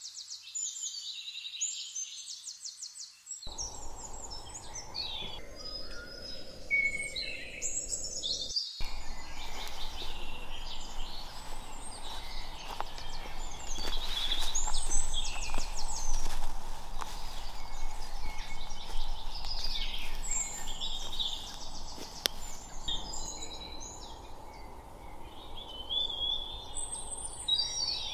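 Woodland birdsong: several birds chirping and trilling. About three seconds in, a steady low outdoor background noise comes in beneath it.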